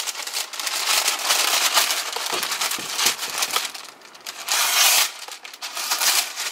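A large sheet of baking parchment crinkling and rustling as it is unrolled and folded on a wooden board, then slit along a kitchen knife blade in the second half.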